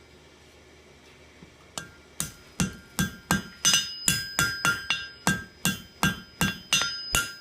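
Blacksmith's hammer striking hot round steel stock on an anvil: after a quiet start, a steady run of ringing strikes, about three a second, begins about two seconds in.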